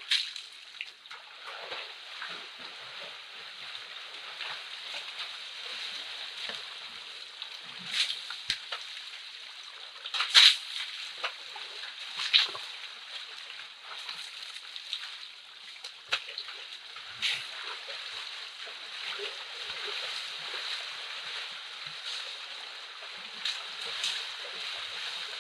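Wild Asian elephants splashing and wading in a shallow forest pool. Sharp splashes come every few seconds, the loudest about ten seconds in, over a steady background hiss.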